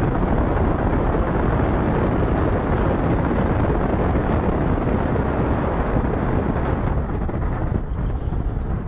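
Steady, loud rushing noise of wind buffeting the microphone, easing slightly near the end.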